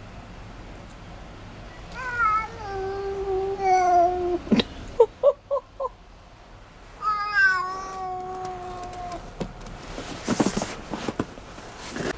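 A cat meowing: two long, drawn-out meows that drop in pitch at the start and then hold steady, with four short, quick meows between them. A brief scuffling or rustling noise follows near the end.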